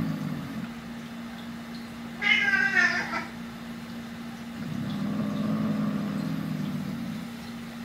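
Domestic cat growling low and possessively with a toy in its mouth, guarding it. About two seconds in comes a louder, higher, wavering yowl, then a second long low growl from about five to seven seconds.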